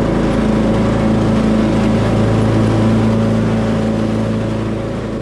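Riding lawn mower's engine running steadily as the mower drives across the lawn, beginning to fade near the end.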